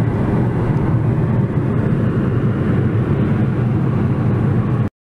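Steady low road and engine rumble heard inside a moving car's cabin at highway speed. It cuts off abruptly just before the end.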